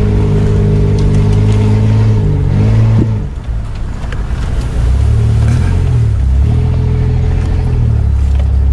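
Off-road 4x4's engine heard from inside the cab, running under load at a steady note. About three seconds in the pitch and level drop briefly, then it pulls again at a lower steady note.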